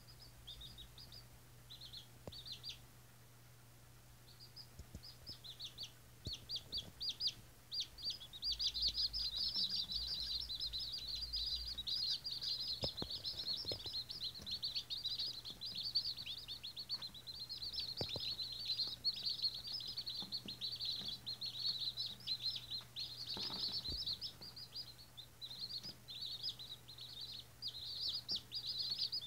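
A group of day-old White Australorp chicks peeping: short, high peeps, a few scattered at first, then a near-continuous chorus from about a quarter of the way in.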